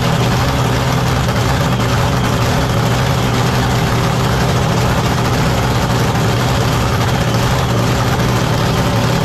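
Drag boat's racing engine running steadily in the pits, a loud, even hum that holds the same pitch and level throughout.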